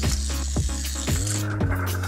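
Background electronic music with a steady beat, a pitch-dropping drum hit about twice a second under held synth notes.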